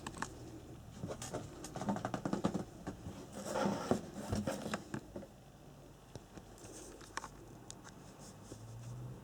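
Handling sounds of an unboxing: a flurry of light clicks, taps and rustling for a few seconds, then scattered single clicks.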